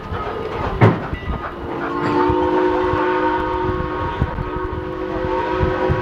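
Steam locomotive's chime whistle blowing one long, steady blast that starts about two seconds in, over the rattle and clatter of the moving train. A sharp knock a little under a second in.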